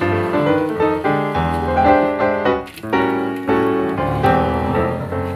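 Background piano music, notes and chords played in a steady flowing run.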